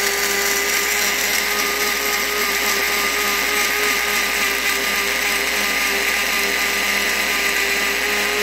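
Electric blade coffee grinder running at full speed, grinding dried mushrooms to powder: a steady motor whine of one even pitch over a hiss.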